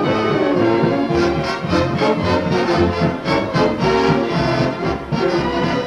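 Orchestral music with brass, the instrumental introduction to a song.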